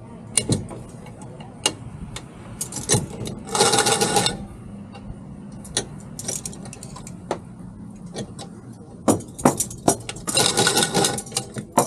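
Clinks, clicks and rattles of metal boat hardware being handled, with two longer scraping bursts, about four seconds in and again near the end, over a faint steady low hum.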